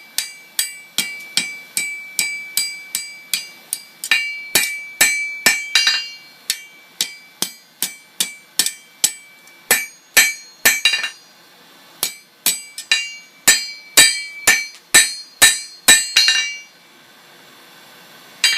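Blacksmith's hammer striking hot tool steel on an anvil, a steady run of ringing blows about two to three a second, with a brief pause about twelve seconds in and the hammering stopping a couple of seconds before the end.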